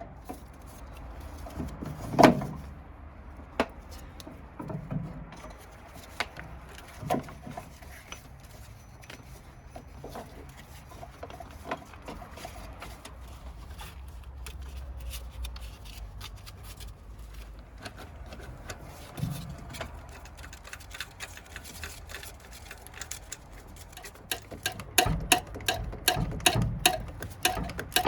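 Hand tools clicking and knocking against metal during engine-bay work: scattered single clicks and knocks, then a quick run of clicks over the last few seconds.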